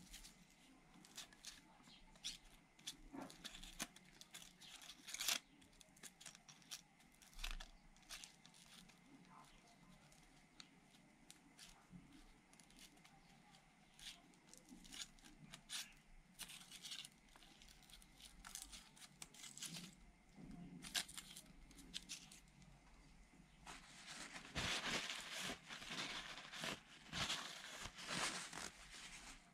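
Light metallic clicks and scrapes of a steel feeler-gauge set as its thin blades are fanned out and handled, a few at a time. Near the end a paper towel rustles and crinkles for several seconds.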